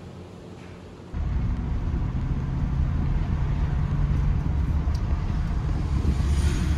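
Faint room tone, then about a second in a cut to the steady low rumble of a U-Haul moving truck's V8 engine and road noise, heard from inside the cab while driving.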